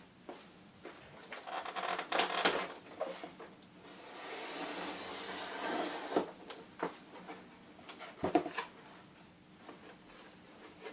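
Cardboard packaging being handled and opened: scattered knocks and rustles, with a longer scraping rasp about four to six seconds in.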